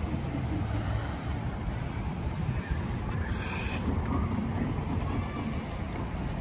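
Steady low rumble of outdoor traffic noise, with a short hiss about three seconds in.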